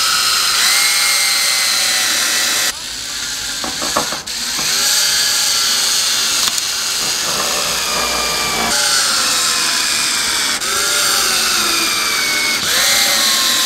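Cordless drill driving 1.5-inch wood screws through a steel hairpin-leg mounting plate into a wooden bench board. The motor whines in several runs with short breaks, its pitch sagging as each screw bites, with a few sharp clicks about three to four seconds in.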